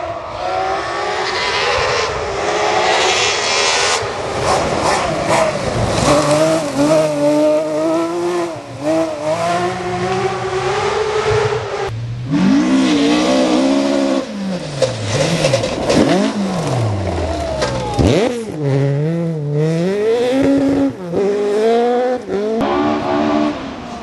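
Rally cars driven flat out on a gravel stage, engines revving hard with the pitch climbing and dropping sharply at each gear change, over the hiss of tyres on loose gravel.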